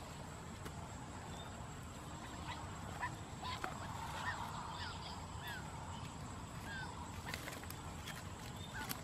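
Quail giving a run of short, high chirps through the middle, mixed with light clicks and rustles of the wicker basket and bamboo trap being handled.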